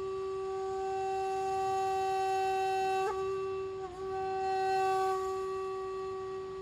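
Shakuhachi playing one long held note, with a brief flick of pitch about three seconds in and a short dip a second later. Breath noise rises over the note, which then fades toward the end.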